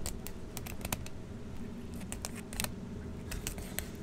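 Fillet knife cutting along a sand tilefish's large backbone and through its rib bones: an irregular run of small sharp clicks and crunches.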